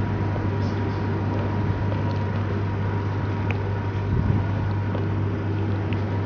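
A steady low hum over a background of noise, with a few faint clicks.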